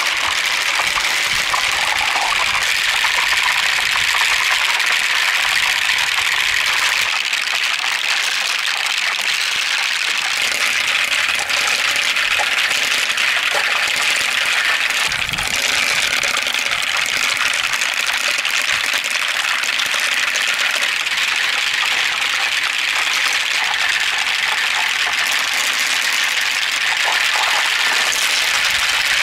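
Water steadily pouring and running through a clear plastic water marble run, splashing in the tracks and the top bowl as small balls are carried along.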